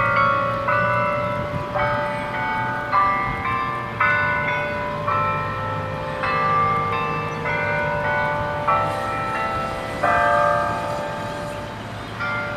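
Church bells playing a slow tune. Single notes are struck about once a second at changing pitches, and each one rings on under the next.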